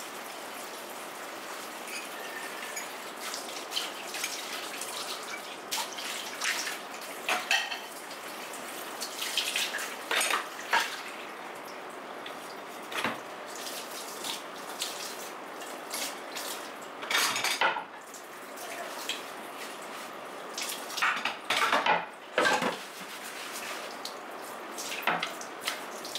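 Dishes washed by hand under a running kitchen tap: a steady stream of water into the sink, broken by scattered clinks and knocks as a mug, a plate and a wooden cutting board are handled and rinsed.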